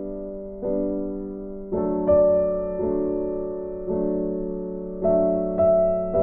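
Background piano music: slow, soft chords, each struck and left to fade, roughly one a second.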